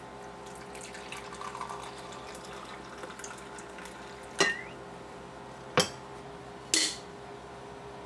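Brewed coffee poured from the glass bowl of a vintage Cory vacuum coffee brewer into a ceramic mug: a soft filling trickle. In the second half come three sharp clinks, the loudest sounds.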